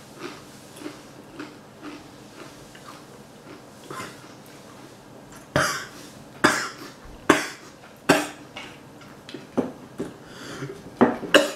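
A person chewing a hot-sauce-covered tortilla chip with a faint, regular crunch about twice a second. About five seconds in, he starts coughing: a series of sharp coughs, two in quick succession near the end, brought on by the burn of the hot sauce.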